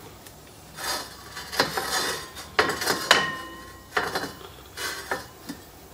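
Metal kitchenware clattering: a series of clinks and knocks from utensils and pots, one strike about three seconds in ringing on briefly.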